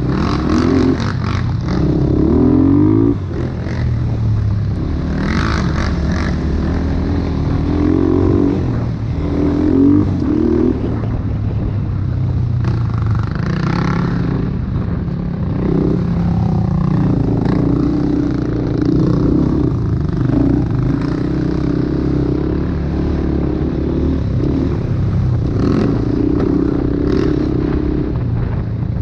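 ATV engine running while being ridden, its pitch rising and falling with the throttle, with scattered clattering knocks and rattles throughout.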